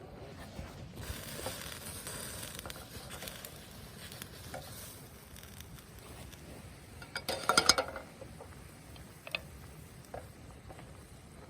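Camp cookware being handled: light scraping and small clinks, then a quick run of metallic clinks about seven seconds in, the loudest moment.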